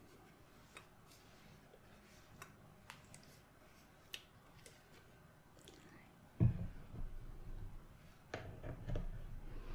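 Faint clicks and taps of a plastic rubbing-alcohol bottle and a cotton ball being handled as the cotton is soaked. About six seconds in, a sudden low rubbing rumble starts: the cotton ball brushing against the microphone, as in ear cleaning.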